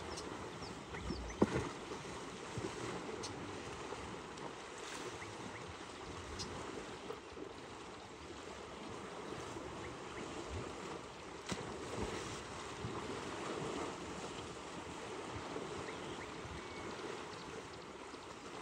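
Steady sloshing and splashing of water as a herd of African bush elephants bathe and swim, with a few short sharp knocks, the loudest about a second and a half in.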